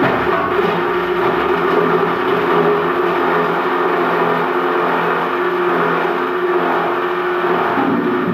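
Plastic scrap grinder machine running and crushing PET preform scrap: a steady mechanical hum with a dense, continuous grinding noise of hard plastic being cut.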